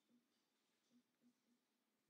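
Near silence: faint room tone with a few very faint, short low blips.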